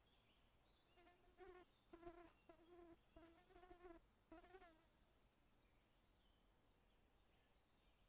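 Faint wing buzz of a flying insect. A low hum comes and goes in about five short stretches over roughly four seconds, over a faint steady high-pitched whine.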